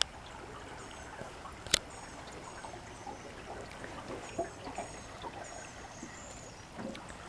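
Quiet river ambience of faintly trickling water, with high, thin chirps repeating throughout and two sharp clicks, the louder one a little under two seconds in.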